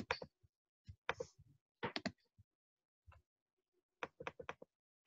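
Computer keyboard keys clicking in short clusters of two to four keystrokes, roughly one cluster a second, faint.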